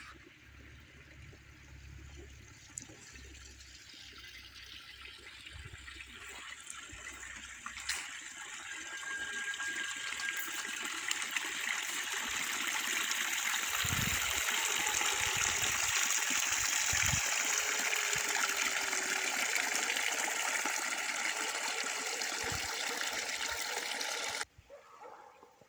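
Steady rush of running water, growing gradually louder over the first dozen seconds, then holding steady until it cuts off abruptly near the end.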